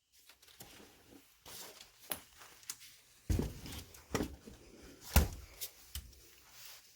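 Scattered knocks and clicks of small hard parts being handled and set down, several in a row, the loudest a little after five seconds in.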